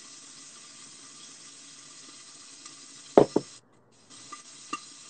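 Seafood stir-frying in a pan for fried rice, sizzling steadily. About three seconds in, two brief loud sounds stand out, followed by a couple of small clicks near the end.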